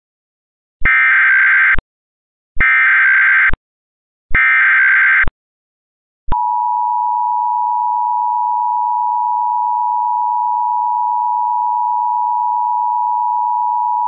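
Emergency Alert System tones. First come three one-second bursts of SAME digital header data, a buzzy data screech that encodes the alert. Then, about six seconds in, the EAS two-tone attention signal starts: 853 and 960 Hz sounded together as one steady, dissonant tone announcing an emergency message.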